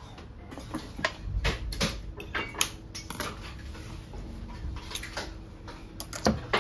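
Glass perfume bottles and small tools clinking and tapping irregularly as perfume is blended and bottled, over a low steady hum.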